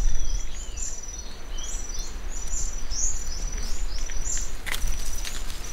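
A songbird repeating short, high chirps, about two or three a second, over a steady low rumble. A few sharp clicks sound near the end.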